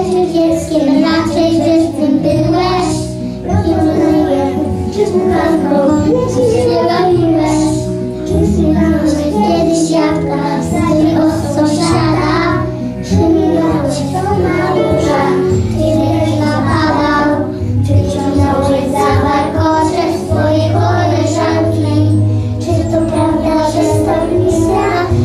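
Young children singing a song together over a musical accompaniment.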